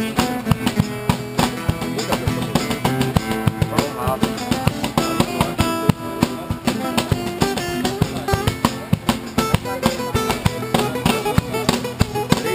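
Live acoustic music: an acoustic guitar strummed in a fast, steady rhythm.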